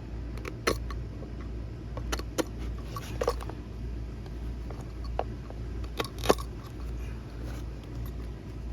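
Scattered small clicks, taps and scrapes of hand work on a plastic console lid, as upholstery cover flaps are cut and pushed into its grooves, over a steady low hum.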